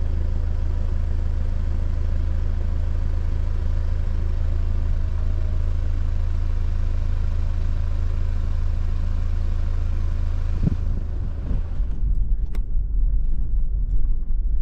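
A vehicle engine running steadily at idle, a constant low hum. About eleven seconds in the steady hum gives way to an uneven low rumble.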